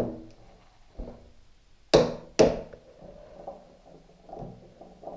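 Clunks from a motorcycle front fork leg being handled on a wooden workbench: three sharp knocks, one about a second in and two close together near two seconds, each with a brief metallic ring. Lighter knocks follow.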